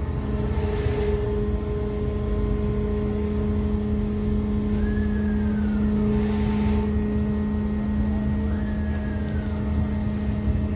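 Large ferry's diesel engines running at the berth: a steady low drone with a constant hum. A faint high chirp rises and falls about every three and a half seconds.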